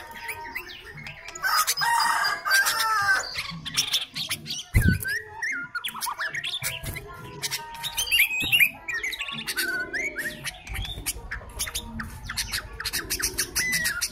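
Sooty-headed bulbul (kutilang) singing a busy run of short whistled, warbling notes that bend up and down, mixed with rapid clicky chatter. A single dull thump sounds about five seconds in.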